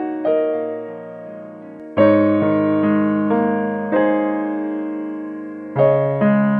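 Background piano music, a slow run of chords and notes, each struck and left to fade. The fullest chords fall about two, four and six seconds in.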